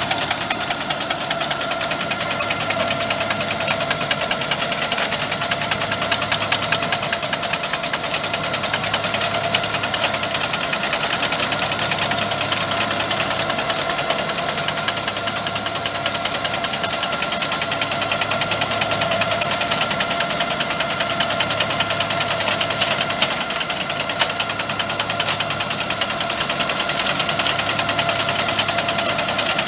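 Rigitrac SKH95 tractor's engine running steadily while the boom-mounted Mense RP 8L clearing shear cuts through brush, its reciprocating blades chattering rapidly and evenly.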